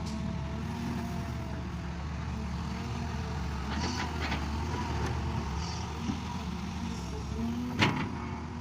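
Engine of a field-working farm machine running steadily, with a few clanks about four seconds in and one sharp knock near the end.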